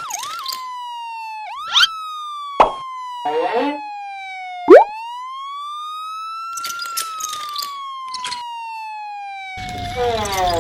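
Ambulance siren wailing in slow sweeps, its pitch falling, then rising, then falling again, with a few short knocks and clicks over it.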